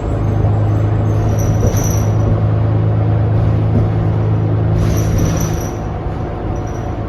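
Inside a 2019 New Flyer XD40 diesel transit bus under way: a loud, steady low drone that the rider finds abnormal and calls insane, with faint high whistles at about two seconds and five seconds in. The drone eases off a little near the end.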